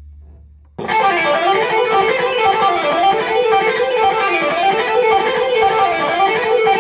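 Electric guitar, a Fender Stratocaster, coming in about a second in and playing a fast melodic riff whose notes rise and fall in a repeating pattern.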